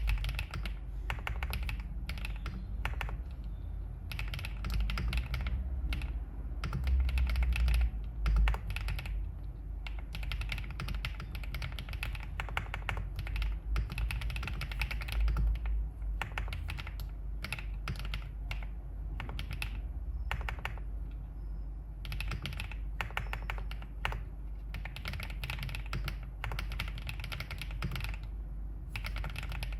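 Wave75 aluminium-case mechanical keyboard with Qingzhu switches being typed on in steady runs of keystrokes with brief pauses between bursts. A steady low rumble lies underneath.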